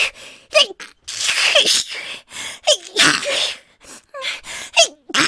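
A young woman sneezing over and over in quick succession. Each sneeze is led by a short, high-pitched 'ha' catch of breath and ends in a loud, hissing burst.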